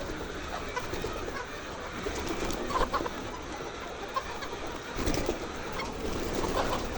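A flock of laying hens calling and clucking together in a dense, continuous chorus, with a few louder calls about three seconds in and again about five seconds in.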